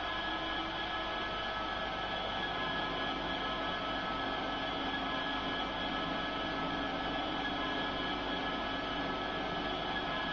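OO gauge model diesel locomotives' DCC sound decoders idling through their small onboard speakers: a steady engine drone with hiss and a set of fixed tones.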